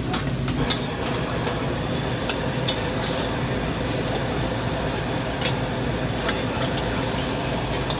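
Steady sizzling of food frying in a hot wok, with a few sharp clicks of a metal spatula against the wok.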